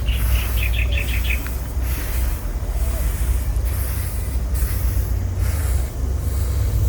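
Rice grain being moved by hand and foot on a drying ground, soft swishes of grain recurring every second or so, over a steady low rumble. A quick run of about eight high chirps sounds in the first second and a half.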